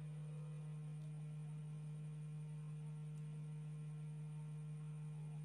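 A steady low hum, one unchanging tone with a faint higher overtone, and no other sound above it.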